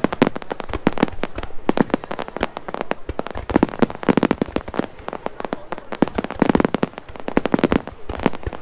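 Aerial fireworks display: many shells bursting in quick succession, a dense, irregular run of sharp bangs and crackles.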